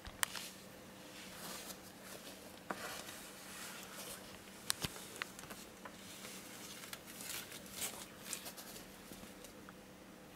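Irregular light taps, clicks and short scuffles of animals moving about, over a faint steady hum.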